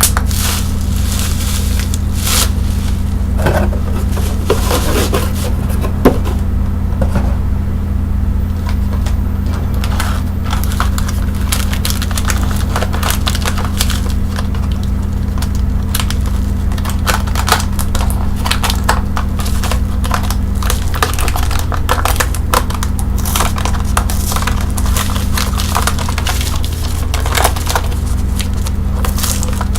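Bubble wrap and plastic packaging being handled and crinkled, with many scattered sharp clicks and pops, over a steady low hum.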